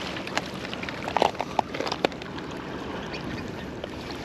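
Water sloshing and splashing as a hooked flathead is brought in alongside, with scattered small clicks and knocks, a quick cluster of them about a second in.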